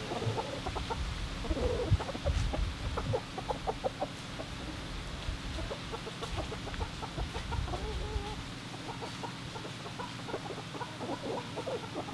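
Chickens clucking, a busy run of short quick clucks from several birds, with one longer, wavering call about eight seconds in.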